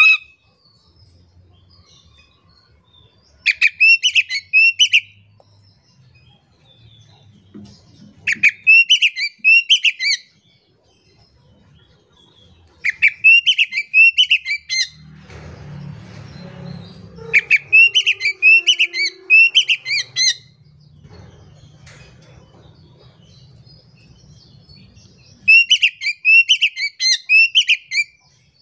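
Oriental magpie-robin singing in five bursts of a few seconds each, with pauses between. Each burst is a quick run of repeated whistled notes that rise and fall.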